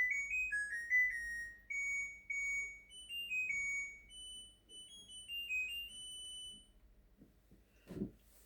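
LG Direct Drive washing machine's electronic end-of-cycle tune: a short melody of beeping notes stepping up and down in pitch, signalling that the spin cycle has finished. A short knock follows near the end.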